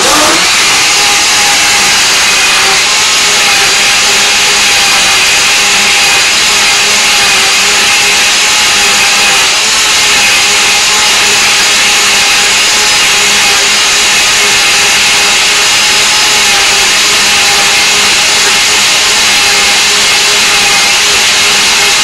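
Waring Margarita Madness blender switched on at the start and running steadily: a loud, even motor whine with the blades churning a thick frozen-fruit and oat mix.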